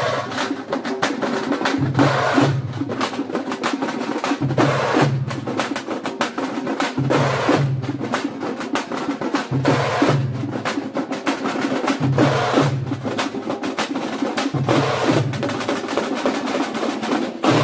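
A group of thamate, Karnataka frame drums, beaten with sticks in a fast, dense rhythm, the pattern repeating about every two and a half seconds.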